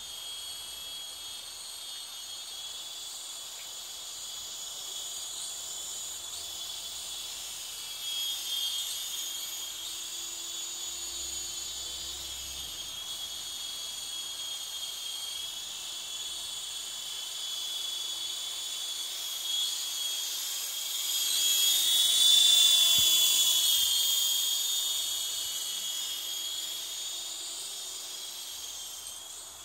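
Small electric RC helicopter (WL Toys V913) whining steadily in flight from its motor and rotor, the pitch wavering slightly with throttle. It swells to its loudest about three quarters of the way through, then eases back.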